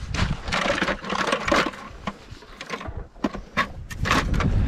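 Footsteps crunching in snow on lake ice, an irregular run of crunches, with wind rumbling on the microphone and fishing gear rattling in a carried plastic bucket.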